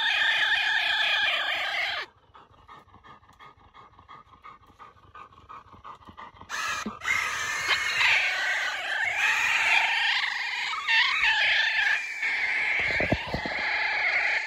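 High-pitched animal cries, loud and close. They break off about two seconds in, come back about four seconds later and then waver more in pitch.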